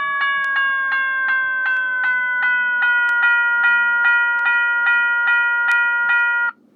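General Signals Type 1 electronic bell chip ringing: a rapid electronic ding repeating about five times a second. Its pitch slides down over the first three seconds as the tone adjuster is turned, then holds steady until it cuts off shortly before the end.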